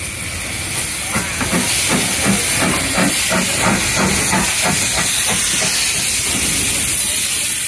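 Steam locomotive working a train, its exhaust chuffing at about three to four beats a second over a loud, steady hiss of steam. The chuffs die away about six seconds in.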